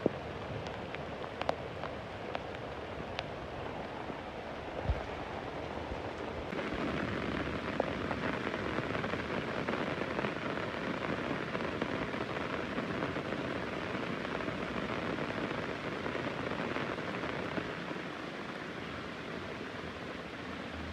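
Heavy rain falling steadily, with a few sharp drip ticks in the first few seconds and a single dull thump about five seconds in. The downpour grows louder about six seconds in and eases slightly near the end.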